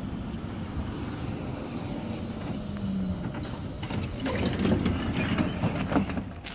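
T8K tram running on rails with a steady low rumble. From about three seconds in come short, high-pitched wheel squeals, building to a longer squeal near the end that is the loudest sound.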